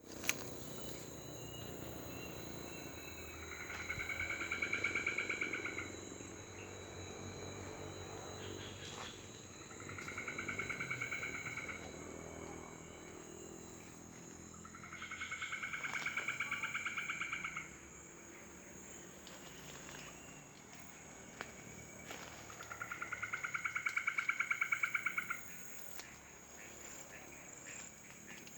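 Night forest animal sounds: an unseen animal gives a rapid, buzzy pulsed trill about two seconds long, four times. Underneath runs a steady high insect whine.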